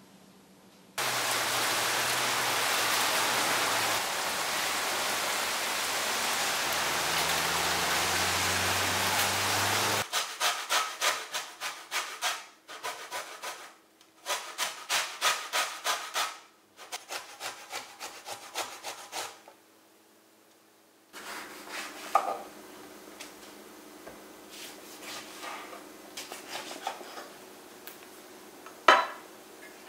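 Orange being zested on a stainless steel box grater: three runs of quick rasping strokes, about three or four a second, followed by light clicks and taps of fruit on a wooden board. Before the grating, a loud steady hiss runs for about nine seconds.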